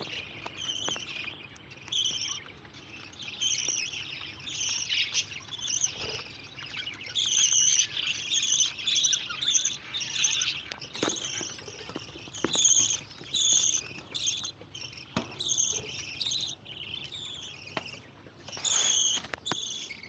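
A flock of budgerigars chattering: many quick, overlapping high chirps and warbles without a break, with a few light knocks.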